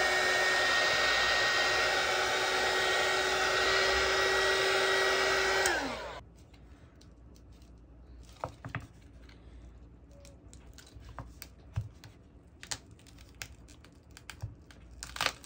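Handheld heat gun blowing hot air onto a phone's cracked, glued-on screen to soften the adhesive: a steady blower noise with a whine. It switches off about six seconds in, its whine falling as the fan spins down. After that come scattered light clicks and taps as a prying tool works at the screen's edge.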